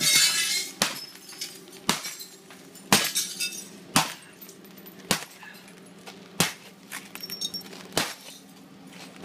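A hammer strikes a cracked impact-glass (laminated) window pane about eight times, roughly once a second. Each blow gives a sharp crack and a tinkle of broken glass. The glass shatters but holds together in the frame.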